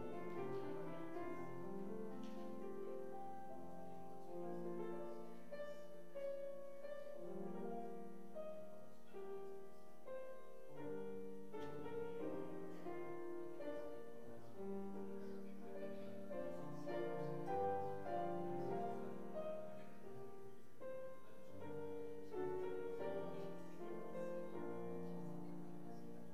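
Slow instrumental music played on a keyboard instrument: a continuous stream of held chords that change about once a second, at an even level.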